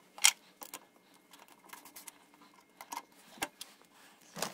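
Sharp clicks and light metallic taps from a MIG welder's wire-feed drive as it is handled by hand: the drive roll is refitted and the idler tension arm is swung down and latched over the wire. The loudest click comes about a quarter second in, with a few smaller ones spread through the rest.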